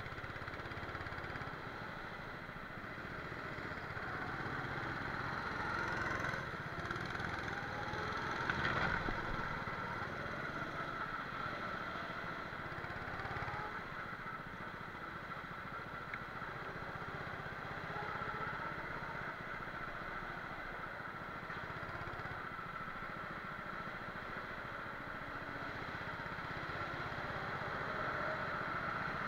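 Rental go-kart engine running right under the onboard camera, its pitch rising and falling with the throttle through the corners, with a short knock about nine seconds in.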